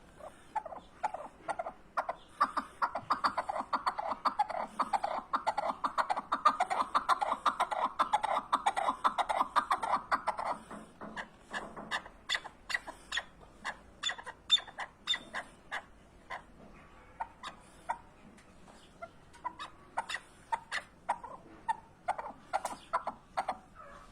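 Chukar partridge calling: a fast, dense run of clucking notes for the first ten seconds or so, then slower, scattered notes.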